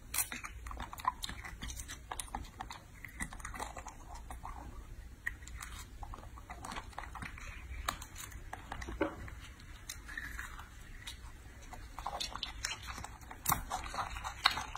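Baby macaque biting and chewing longans, with scattered small crackles as the thin shells are peeled and the fruit in the pile is handled. The clicking grows busier and louder near the end.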